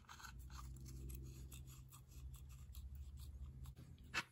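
Faint clicks and light scraping of small metal parts being handled and fitted into a Ford flathead distributor by hand, over a low steady hum. One sharper click comes near the end.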